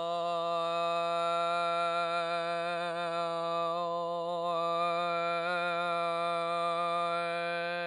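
A singer in full chest voice holding one long, steady low note, the vowel colour shifting slightly while the pitch stays put, like a chanted drone.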